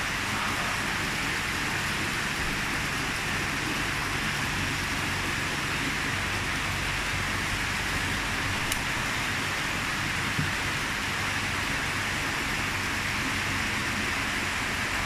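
Water spraying from a hose nozzle onto the water in a koi bowl: a steady, unchanging hiss and patter.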